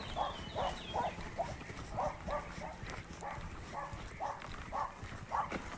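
A dog barking repeatedly, in runs of a few barks at a time, roughly two barks a second.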